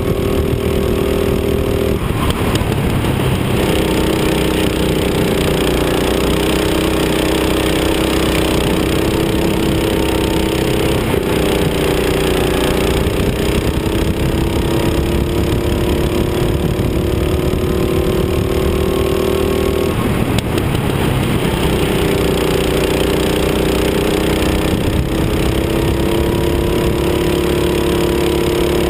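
Rental kart engine running hard, heard from on board the kart. The engine note drops sharply three times, about 2, 11 and 20 seconds in, and each time climbs back gradually as the kart picks up speed again, over a steady rush of wind and road noise.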